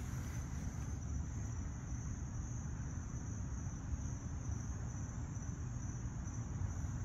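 Steady high-pitched trill of a night insect chorus, over a constant low rumble.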